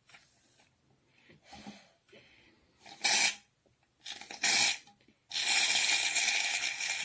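Aerosol can of shaving foam being sprayed with a hiss: two short squirts, then a longer steady spray that runs on near the end.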